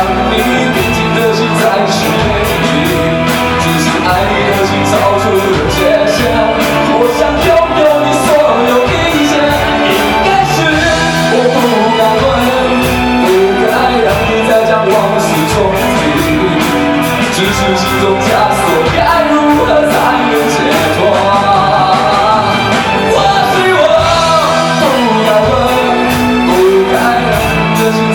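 Rock band playing live, with a drum kit keeping a steady beat on the cymbals under a melodic line and singing.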